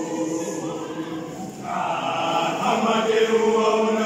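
Male voice choir singing together in harmony, holding long chords; the singing grows louder about halfway through.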